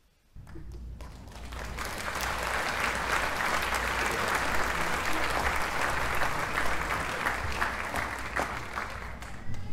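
Audience applause, a dense patter of many hands clapping that starts about a third of a second in and swells over the next couple of seconds before holding steady.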